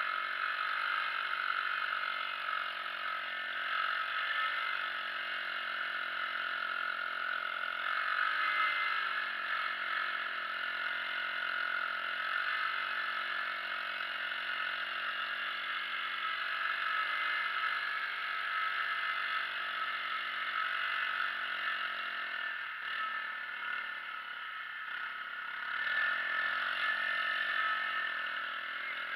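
Four-wheeler (ATV) engine running under way across snow, its pitch rising and falling as the throttle changes. It eases off for a couple of seconds about three-quarters of the way through, then picks up again.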